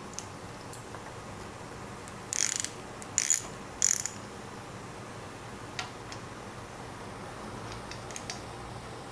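Hand ratchet wrench clicking in three short runs, with a few faint metal ticks later.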